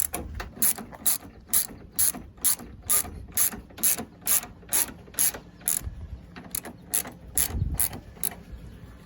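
Socket ratchet clicking in an even rhythm, about two clicks a second, while a headlight mounting bolt is tightened; the clicks stop near the end.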